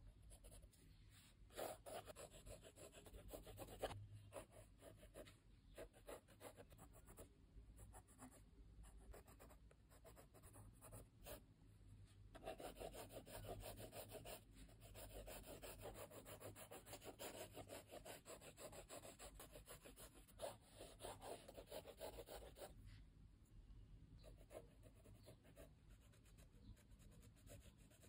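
Faint scratching of a coloured pencil on sketchbook paper, in quick repeated strokes as it draws and hatches.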